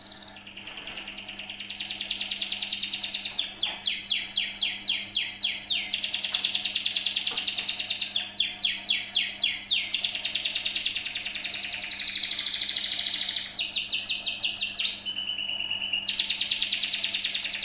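Domestic canary singing a long, unbroken song: fast rolling trills alternating with runs of sharp repeated notes at about four a second. It is the kind of canary song played as a lure to set other canaries singing.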